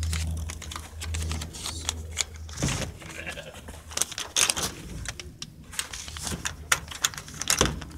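Irregular clicks, knocks and rattles of wire cage mesh and plastic sheeting being handled up close, with a low rumble of handling noise in the first second and a half.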